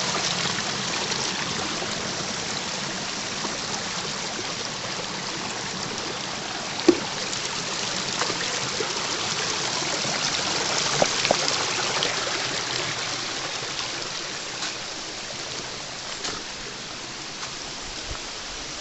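Water running steadily in a forest stream, a continuous rushing that slowly fades. There is a single sharp knock about seven seconds in.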